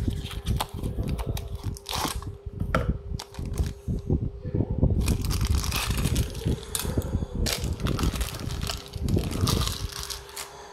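Rustling and crinkling of toy packaging handled up close: a cardboard Tomica box being opened and a die-cast truck pulled out in a thin plastic bag, with irregular crackles and small handling taps. A steady low hum runs underneath.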